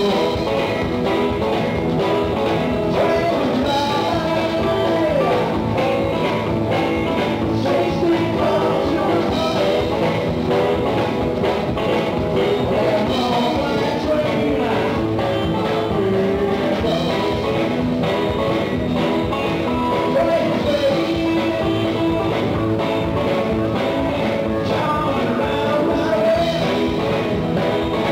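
Live rock and roll band playing, with an electric guitar and drums driving a steady beat.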